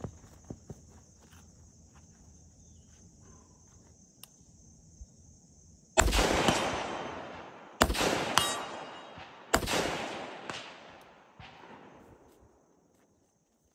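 Recce rifle (5.56 mm semi-automatic) firing three shots a little under two seconds apart, each with a long, dying echo. A fainter, sharp knock follows about half a second after the second and third shots.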